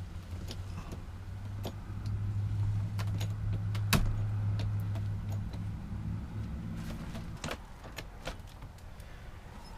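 Scattered clicks and knocks, with one sharp knock about four seconds in, over a steady low hum like a motor running.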